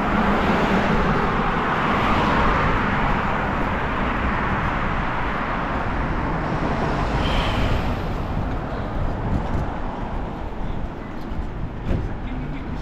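Road traffic running past, with wind rushing on the microphone; a vehicle swells past in the first few seconds and fades away.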